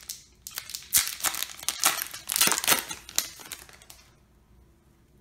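Foil wrapper of a Yu-Gi-Oh! booster pack being torn open and crinkled as the cards are pulled out: a dense run of sharp crinkles that stops about four seconds in.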